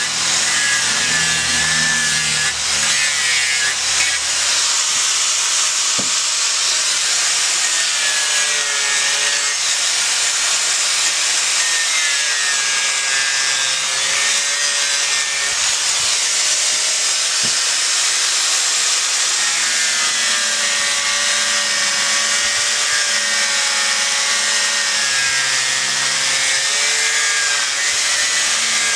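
Electric angle grinder running continuously, its disc grinding and shaping a monkeypod wood tiki carving. The motor's whine wavers up and down in pitch as the disc bites into the wood and eases off.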